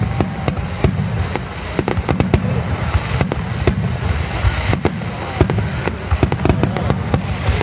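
Fireworks going off: a dense, irregular run of sharp crackling pops and bangs over a continuous low rumble.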